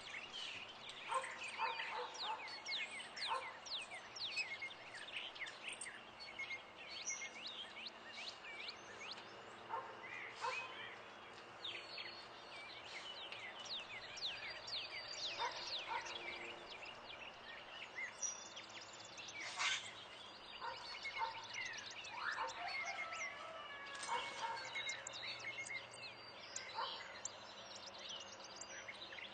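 A busy chorus of songbirds: many overlapping short chirps and quick down-slurred whistles, with a few louder calls standing out now and then.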